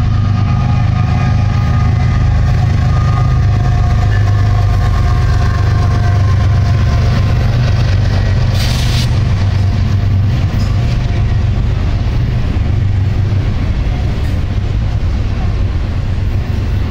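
Diesel freight train passing close by: the BNSF locomotive's engine and the rolling double-stack intermodal cars make a loud, steady low rumble. A brief hiss cuts in about eight and a half seconds in.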